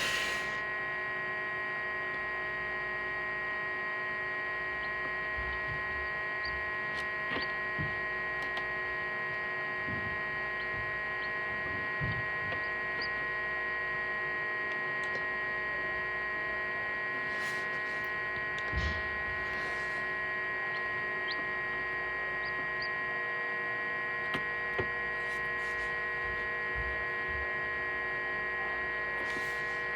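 Egg incubator's electric fan motor running with a steady hum of several pitches, with a few faint knocks.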